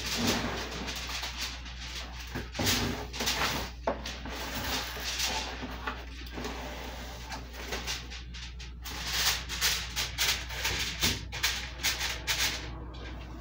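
Plastic cling film crinkling and rustling as it is pulled off its roll and handled around foil-covered aluminum baking pans, in irregular crackles and scrapes, busiest in the second half.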